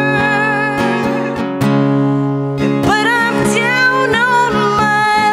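Live acoustic music: acoustic guitars strummed steadily, with a woman's voice singing a held, wavering line over them from about three seconds in.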